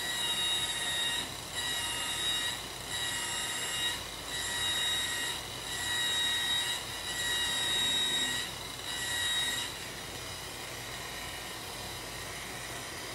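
Rotary buffer with a compounding pad running on bare aluminum sheet during the first, coarse compounding pass. It gives a high-pitched whine that swells and dips about seven times, roughly a second each, as it is worked across the panel, and stops about ten seconds in.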